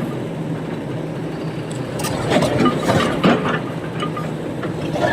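Heavy diesel engine of a SANY SY225 excavator running steadily at a quarry loading job, with several sharp clanks and knocks between about two and three and a half seconds in.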